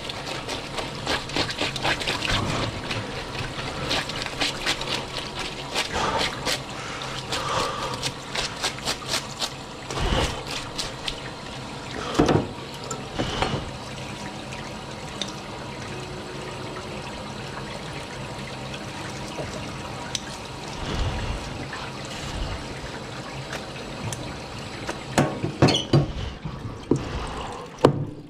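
Tap water running steadily onto a cutting board and a filleted red sea bream. Quick repeated scraping strokes along the fish fill the first ten seconds, and a few sharp knocks of a knife on the cutting board come near the end.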